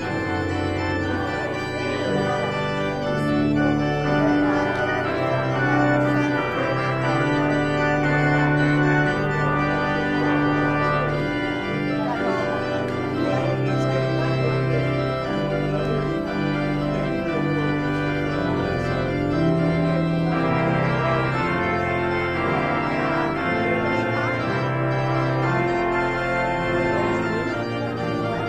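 Organ playing the postlude at the end of a church service: held chords with a moving melody line over them.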